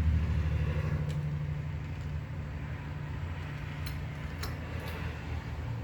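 A few faint light metallic clicks from deadbolt lock parts being handled and fitted into the door, over a steady low hum.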